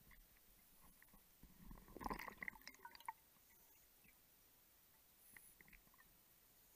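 Faint underwater clicks and wet crackles from a diver's gear on a closed-circuit rebreather, bunched together about two seconds in, with a few lighter clicks near the end over a very quiet background.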